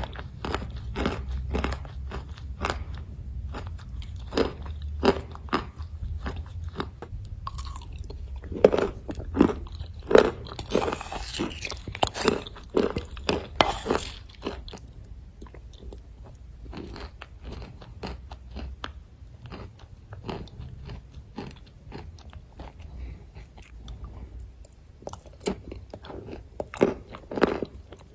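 Close-up chewing and crunching of white clay pieces and clay paste, a steady run of short crisp crunches, busiest about halfway through, over a low steady hum.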